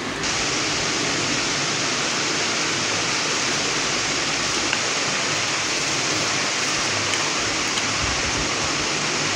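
A steady, even rushing hiss that sets in abruptly at the very start, with no distinct handling sounds standing out.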